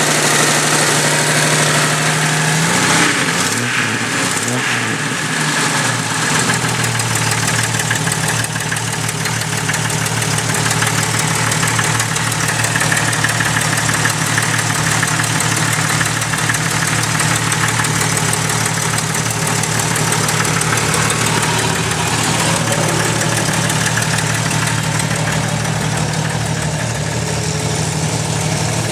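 1997 Jeep Cherokee XJ's 4.0-litre inline-six running with a ticking from the back of the engine, revved briefly about three seconds in and then settling back to idle. The tick is an exhaust leak from a cheap header gasket that has blown apart.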